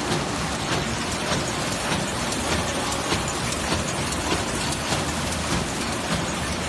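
Automatic square-bottom handle paper bag making machine running: a steady mechanical clatter with a regular knock about every 0.6 seconds.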